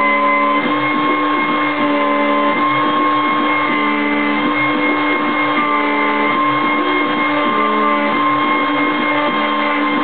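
A handheld router, mounted as the spindle of a CNC machine, runs with a steady whine while its 4 mm cutter mills a pattern into a board. Over it, the stepper motors sound short tones that change pitch every fraction of a second as the machine traces the curves.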